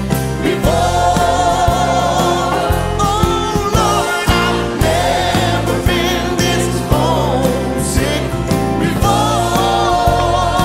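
Live gospel music: a choir and a male lead singer singing with band accompaniment over a steady beat.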